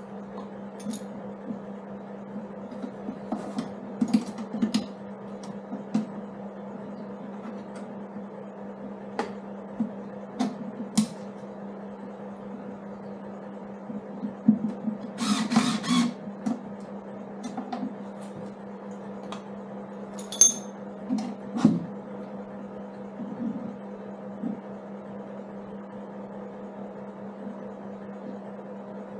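Scattered clicks and metallic knocks of a hand tool working bolts on a motorcycle's pannier frame, with a denser rattling burst of about a second around midway. A steady low hum runs underneath.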